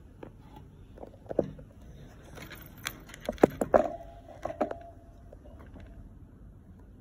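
Scattered light clicks and knocks from a plastic hamster wheel and cage, bunching up about halfway through as a finger pokes the hamster curled inside the wheel. A short creak comes just after the loudest knocks.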